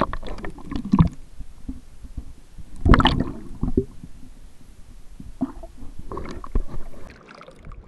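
Water splashing and sloshing in short irregular bursts, the loudest about three seconds in, as a brook trout is let back into the pond.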